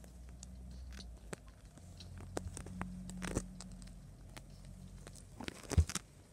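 Kittens scuffling and pawing at each other on a fabric blanket: scattered soft taps and rustles over a faint low hum, with a louder thump near the end.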